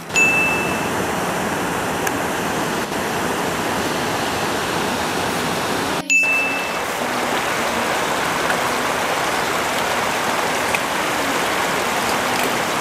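Steady rush of a shallow mountain stream flowing over stones, broken off and resuming at a cut about six seconds in. A short high ding sounds at the very start and again just after the cut.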